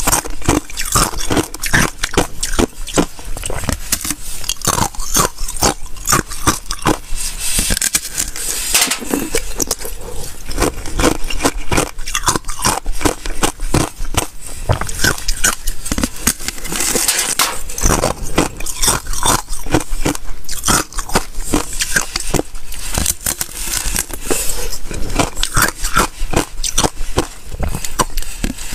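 Biting and chewing a thin, brittle sheet of ice: a dense, rapid run of crisp snaps and crunches as the ice breaks between the teeth.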